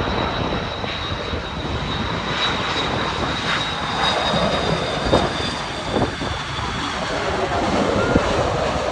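Airbus A330 twin-engine jet airliner landing: steady jet engine noise with a thin high whine as it passes low and settles onto the runway.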